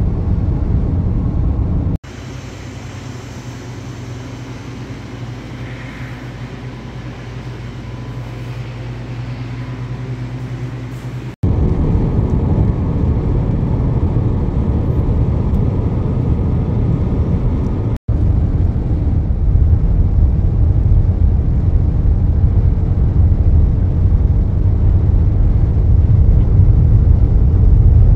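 Road noise heard from inside a moving car: a steady low rumble of tyres and engine with air noise. It comes in separate stretches that cut off abruptly about 2 s, 11 s and 18 s in, and the stretch after about 11 s is louder than the one before it.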